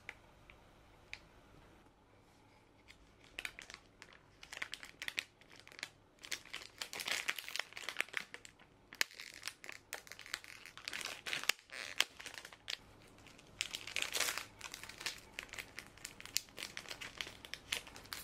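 Plastic gummy-candy packet and the small black plastic keychain pouch inside it crinkling and tearing as they are opened by hand. The crinkling comes in irregular runs with short pauses, starting about three seconds in.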